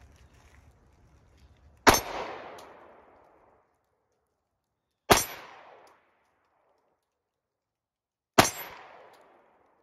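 Three single shots from a Sig Sauer P365-XL Comp Rose 9mm pistol, about three seconds apart, each followed by an echo that dies away over a second or so.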